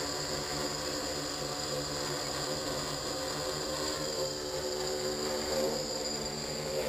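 XAircraft DIY-Hexa hexacopter's six electric motors and propellers buzzing steadily in flight, a chord of steady tones whose pitch wavers slightly as it manoeuvres.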